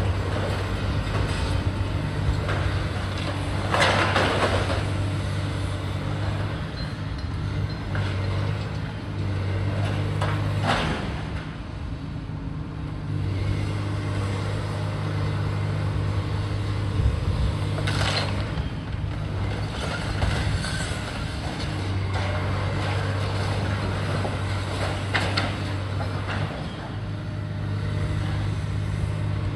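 Heavy diesel demolition machinery running steadily, its engine note dropping and rising again several times. Four short noisy bursts break through, the loudest about four seconds in.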